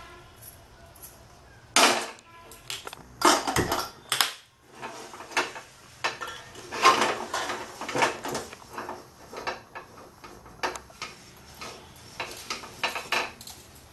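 Empty metal kadai (wok) being handled on a gas stove and wiped out by hand: irregular clanks, knocks and scrapes of metal on metal, loudest in the first half.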